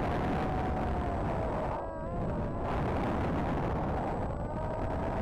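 Electric motor and propeller of a Predator Z-51 RC plane, heard from its onboard camera: a steady whine that wavers and dips in pitch about two seconds in, over heavy wind rumble on the microphone.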